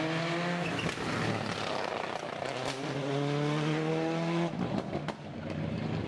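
Rally car engine revving hard under acceleration, its pitch climbing twice with a gap of rougher noise between. Near the end the engine note cuts off abruptly and a few sharp cracks follow.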